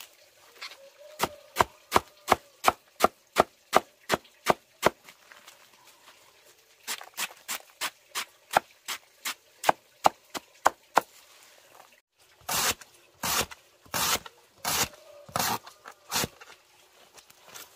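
A heavy machete-style knife chops through a fresh bamboo shoot onto a wooden board. It comes in quick, even strokes about three a second, in two runs with a pause between. After a break near the two-thirds mark come about half a dozen heavier, longer chops.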